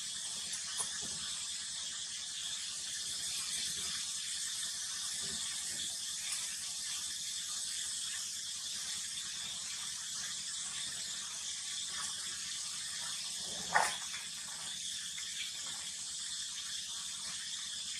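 Steady high-pitched hiss of outdoor ambience, with one short sharp knock about fourteen seconds in.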